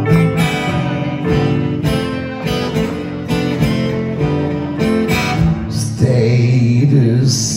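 Live acoustic band playing a slow rock ballad: an acoustic guitar strummed in a steady rhythm over held keyboard chords. A voice starts singing about six seconds in.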